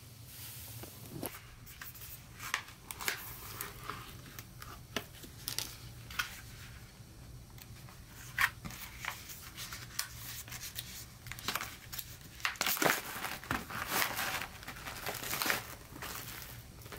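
Foil pouch of a freeze-dried pasta bolognese ration being handled and torn open, its packaging crinkling and rustling in irregular crackles that grow busier in the second half.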